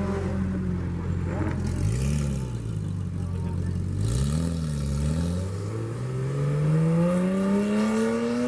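Car engine revved in two short blips, then accelerating away with a long, steady rise in pitch that falls sharply right at the end.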